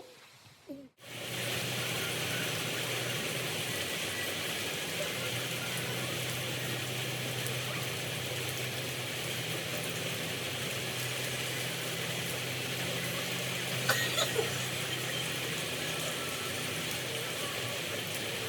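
Steady rain noise with a low, even hum beneath it, coming in abruptly about a second in after a brief silence. A short cluster of taps about fourteen seconds in.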